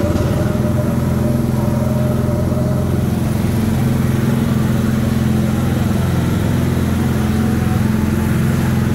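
Go-kart engine running steadily as the kart is driven around the track.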